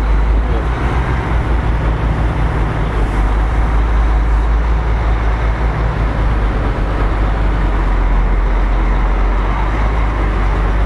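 Heavy truck's diesel engine running steadily at low speed while the B-double rig maneuvers slowly.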